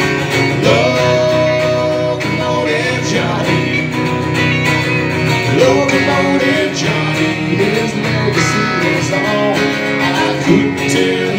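A live band playing a song: electric and acoustic guitars strumming, with a woman singing lead and the men singing along at their microphones.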